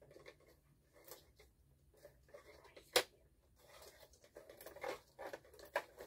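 Plastic toy parts being handled and fitted together: faint rustling and light clicks, with one sharp click about three seconds in and a quick run of small clicks near the end.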